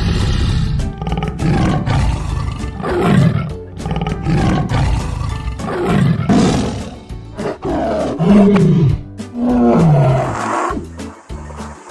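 A tiger roaring several times, each deep call falling in pitch, over background music. About ten seconds in, a short rhythmic music jingle takes over.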